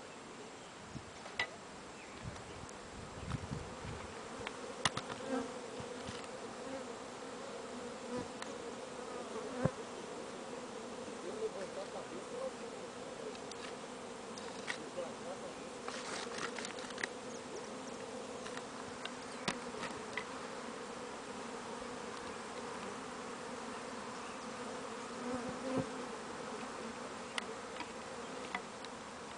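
A large swarm of honeybees buzzing in a steady, continuous hum as it flies around and moves into a wooden hive box, with a few short clicks scattered through.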